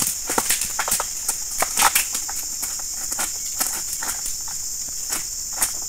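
Steady high-pitched insect chorus, with irregular sharp clicks and crackles over it, the loudest about two seconds in.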